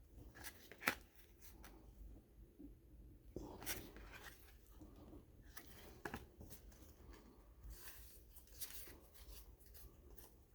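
Faint rustling and small clicks of baseball cards being handled and a pack wrapper being torn open.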